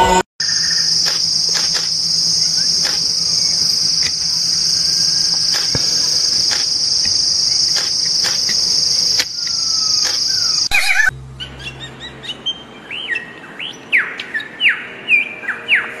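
Steady high-pitched insect drone with occasional faint bird notes; about eleven seconds in it cuts to a bird giving a quick series of short, down-slurred chirps, two or three a second.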